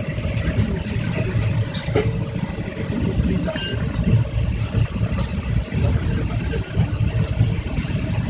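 Indian Railways passenger train running at speed: a steady low rumble of wheels on the track, with a sharp click about two seconds in.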